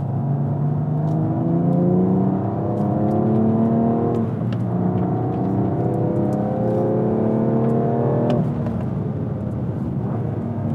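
BMW M2 Competition's S55 twin-turbo straight-six accelerating hard, heard from inside the cabin. The pitch climbs for about four seconds, drops sharply at an upshift of the six-speed manual, then climbs again. About eight and a half seconds in the revs fall away.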